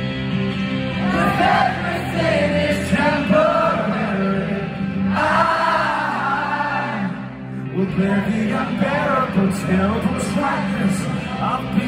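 Live rock band playing in an arena: a male singer's voice over guitar and band, as heard from the audience through a phone microphone.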